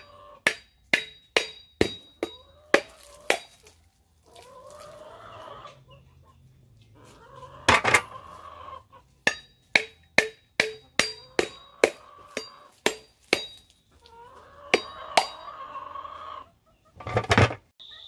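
A machete strikes a dry coconut held in the hand, making sharp knocks with a brief metallic ring, in runs of about two a second that crack the shell open. The loudest blows come about eight seconds in and near the end. A chicken clucks in the pauses between the runs.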